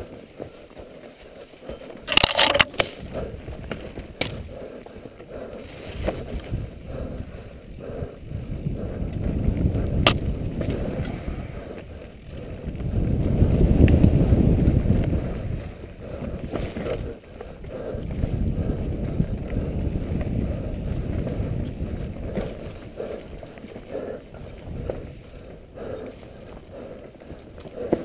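Mountain bike ridden fast down a rough forest dirt trail: rolling tyre noise and bike rattle with many small knocks, and a low rush of air on the helmet-mounted camera that swells and fades, loudest a little before halfway. A sharp clatter about two seconds in.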